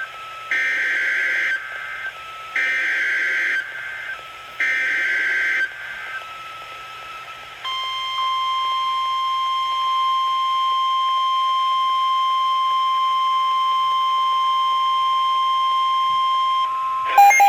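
NOAA Weather Radio emergency alert header: three harsh, roughly one-second data bursts about a second apart, then the steady single-pitch warning alarm tone held for about nine seconds, marking the start of another severe thunderstorm warning. Right at the end a different, louder beeping begins.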